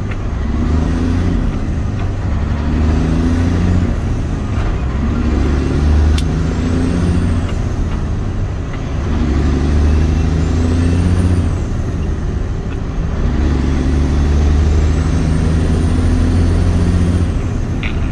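Truck engine pulling up through the gears, heard from the cab. The engine note breaks off at several gear changes a few seconds apart, and a faint high whistle rises as it pulls in each gear.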